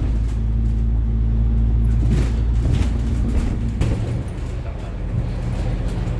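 Double-decker bus running along the road, heard from inside: a steady low engine and road drone, with a few brief clicks of the cabin rattling about a third of the way in.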